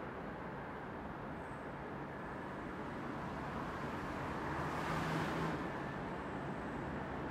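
Low, steady rumble of a shunting locomotive hauling freight wagons slowly through the station. The rumble swells briefly about five seconds in, with a low hum and a rush of hiss.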